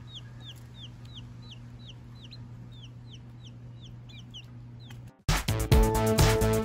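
Baby chicks peeping: a steady run of short, falling peeps, about three a second, over a low steady hum. Upbeat electronic music cuts in suddenly near the end.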